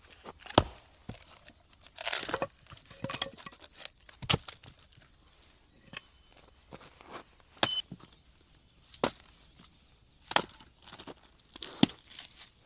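Sharp chopping strikes on wood at an uneven pace, roughly one every second or two, with a longer tearing, crackling sound about two seconds in.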